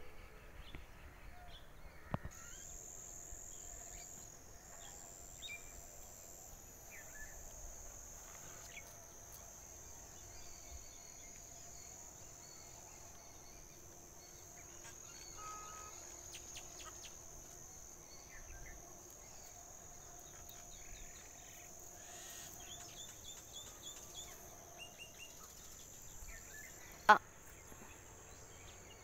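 Faint rural outdoor ambience: a steady high insect buzz with scattered short bird calls. A single sharp click near the end is the loudest sound.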